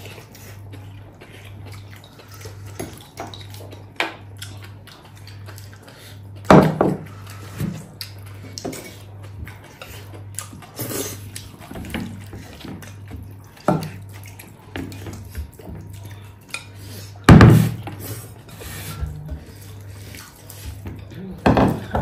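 Tableware at a meal: scattered clinks and knocks of dishes and cutlery on metal plates as people eat, with two louder knocks about six and a half and seventeen seconds in, over a steady low hum.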